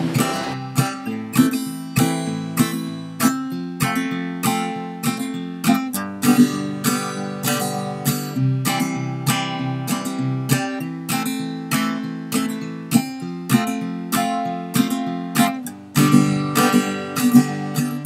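Background music: acoustic guitar strummed in a steady rhythm.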